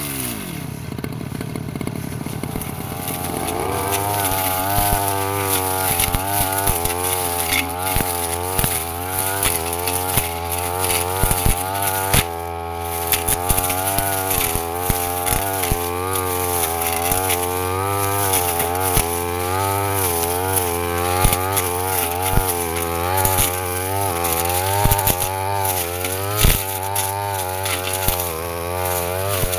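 Petrol brush cutter engine running hard, its pitch wavering up and down as the blade cuts through grass. Right at the start it drops to idle, and it revs back up after about three seconds. Frequent sharp ticks sound over the engine.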